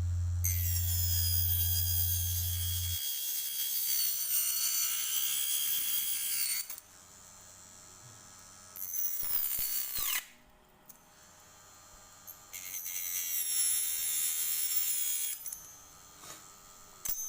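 Small 12-volt DC motor of a homemade mini cutter whining as it runs in several stretches with quieter gaps between, its pitch falling sharply once as it spins down about ten seconds in.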